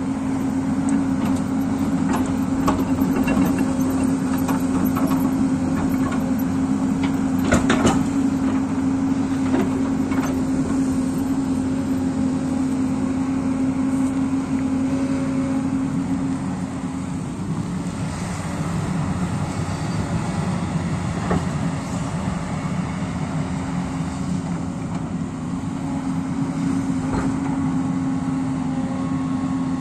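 Hyundai crawler excavator's diesel engine running steadily under load while its bucket digs into a rocky hillside. Scattered knocks and clatter of bucket teeth and stones sound over it, the loudest a little under a third of the way in.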